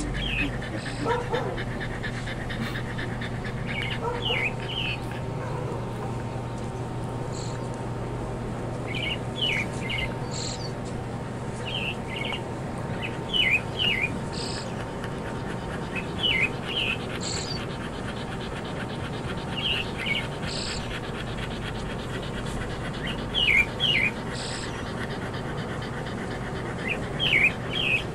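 Small birds calling in short clusters of two or three quick chirps, repeating every few seconds, over a steady low background hum.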